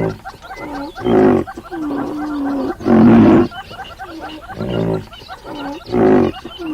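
Repeated animal calls: a loud call of about half a second comes about once every two to three seconds, with softer calls that bend up and down in pitch in between.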